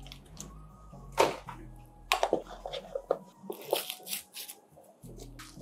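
Protective plastic wrapping being peeled and torn off the Apple Vision Pro battery pack and its cable: irregular crinkling and rustling, with a few sharper rips.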